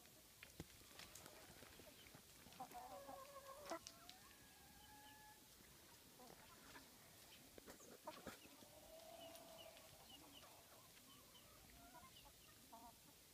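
Faint clucking and a few drawn-out calls from black Australorp chickens, with scattered soft clicks.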